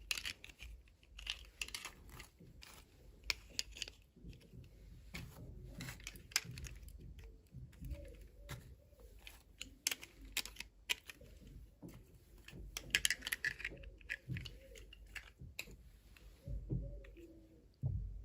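Hands opening plastic toy packaging: irregular crinkling and tearing, with small sharp clicks and taps of plastic pieces.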